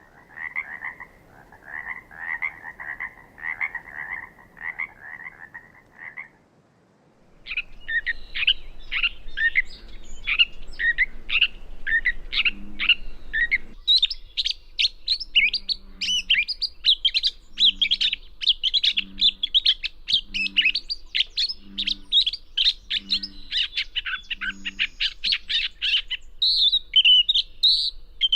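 Gray catbird singing: a fast, run-on series of varied squeaky, warbled phrases. For the first six seconds a lower, evenly pulsed call plays instead, and later a faint low pulse sounds beneath the song about once a second.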